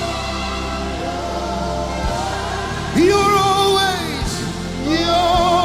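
Slow live worship music: sustained keyboard chords, joined about three seconds in by a strong lead melody note that slides in and is held with vibrato, then comes back for a second long held note near the end.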